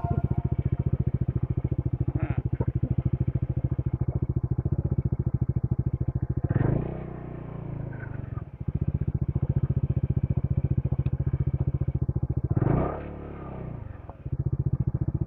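Motorcycle engine running with a fast, even pulsing beat. Its note drops away twice, about seven and thirteen seconds in, then picks back up.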